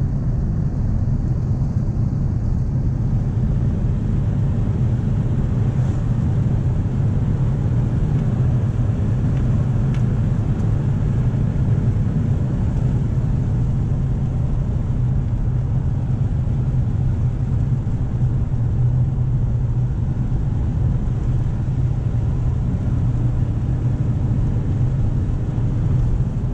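Steady in-cab drone of a Nissan Navara D40 pickup under way on the highway: engine and tyre noise mixed into an even low hum, with no change in pitch or level.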